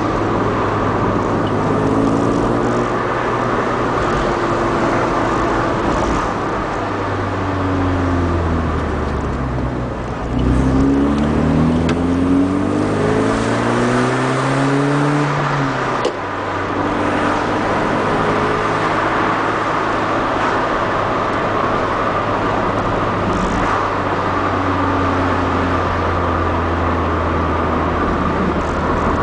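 Mk3 VW Golf GTI 16v's 2.0-litre sixteen-valve four-cylinder engine heard from inside the cabin while driving, over steady road and tyre noise. The revs fall as the car slows, rise hard under acceleration about a third of the way in, drop suddenly at a gear change about halfway, then hold steady at a cruise.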